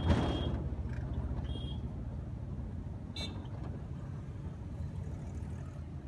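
Low, steady rumble of road traffic and a vehicle's engine, heard from inside a moving vehicle. It is loudest at the very start as something passes close, and a short, sharp high sound cuts in about three seconds in.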